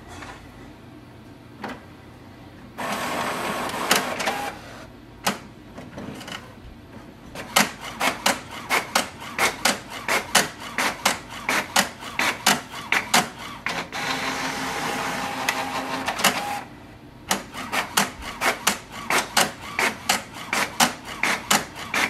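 HP OfficeJet Pro 8210 inkjet printer printing a two-sided page. A motor whirs as the paper feeds, then fast mechanical clicking sets in at about three clicks a second. The clicking is broken by another steady whir about two-thirds of the way through, then resumes.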